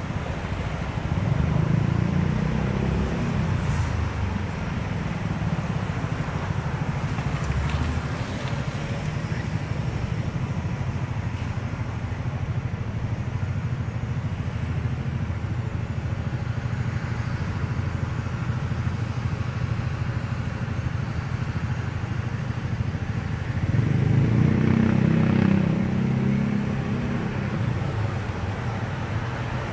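Street traffic: cars and other road vehicles driving past in a steady low rumble, with two louder passes, about two seconds in and again near the end.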